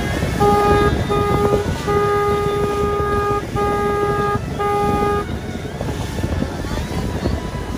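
A boat horn sounds five blasts in a row on one steady pitch, the third held longest, over the steady rush of wind and the running boat.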